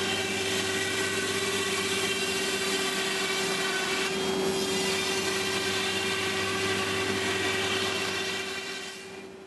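CNC router spindle running with a steady whine as its long tool carves through expanded polystyrene foam, over a rushing noise of cutting and dust extraction. The sound fades away near the end.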